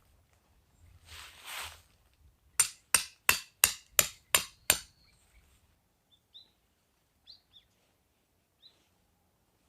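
Seven quick, evenly spaced hammer blows with a short metallic ring, just under three a second. A few faint bird chirps follow.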